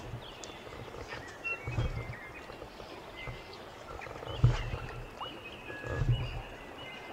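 Steady rush of a flowing river, broken by a few short low thumps, the loudest about halfway through, with faint thin high chirps.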